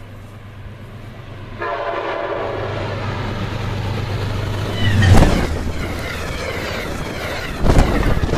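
Amtrak P32 diesel locomotive's K5LA five-chime horn, starting about a second and a half in and held over the diesel engine's low rumble. As the locomotive passes about five seconds in, the chord drops in pitch (Doppler effect) and the train rushes by loudly.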